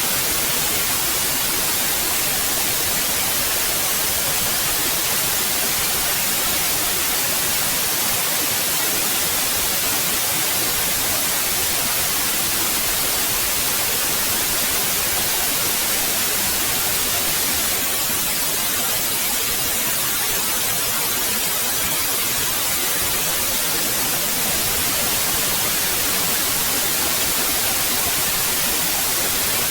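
Steady white noise: an even, unchanging hiss with the most energy in the high frequencies.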